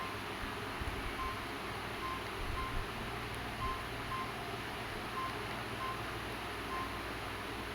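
Keypad tones of a Samsung GT-E1150 feature phone: about ten short single-pitch beeps, one per key press, at an uneven pace of roughly one every half second to a second, with faint handling rumble.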